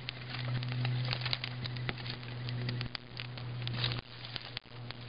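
Small kindling fire of pine and fir shavings crackling, with scattered sharp irregular pops, over a steady low hum.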